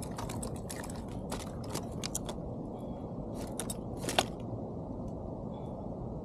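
A quick run of sharp clicks and crackles from a fish and lure being handled in a landing net, ending with one louder click about four seconds in, over a steady low rumble.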